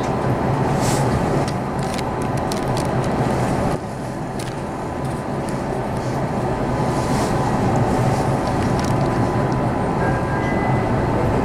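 Meitetsu electric train running at speed, heard from inside the car: a steady rumble of wheels and running gear with scattered sharp clicks and rattles. The noise drops suddenly about four seconds in, then slowly builds again.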